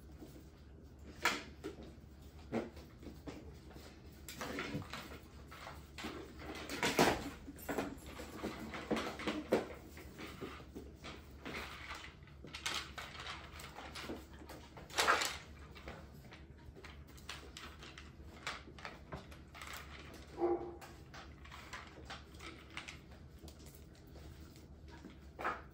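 A litter of bullmastiff puppies playing: scattered knocks, scuffles and rustles of paws and toys on a hard floor, coming in uneven clusters, with a short squeak about twenty seconds in.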